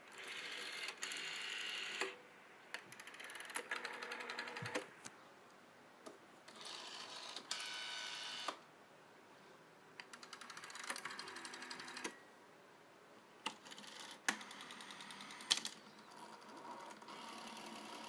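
Rotary telephone dials being dialed, digit after digit: each time, the dial winds back with a fast ticking whirr lasting one to two seconds and stops with a click. About six digits run in a row, with short pauses between them.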